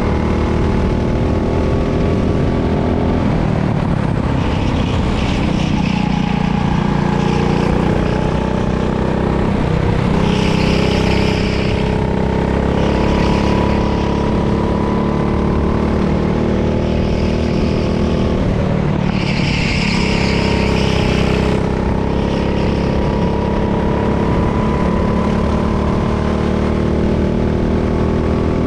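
Racing go-kart engine running hard, its pitch rising and falling with the throttle. A higher hiss comes and goes twice, for a couple of seconds each time.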